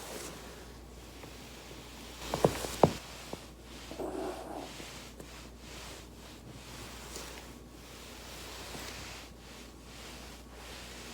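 Back cracking during foam rolling: a body shifting and rustling on a foam roller, with two sharp cracks about half a second apart some two and a half seconds in as spinal joints pop.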